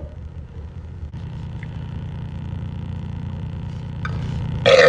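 A steady low rumble, then near the end a loud burp starts.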